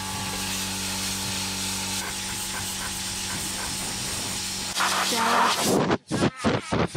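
Compressed-air blow gun hissing steadily. It gets louder for about a second, then gives several short blasts near the end.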